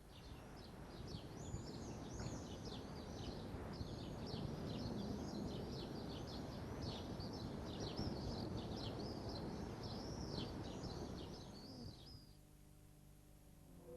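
Birds chirping, a quick run of short, arching high calls over a steady low rumble of ambient noise, stopping about twelve seconds in.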